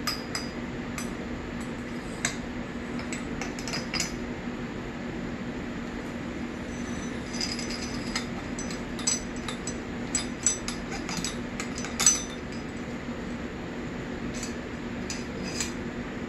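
Scattered light metallic clicks and clinks as a dirt-bike fork's damper rod assembly is slid in through the top of the fork tube and the fork is handled, the sharpest click about three-quarters through. A shop fan hums steadily underneath.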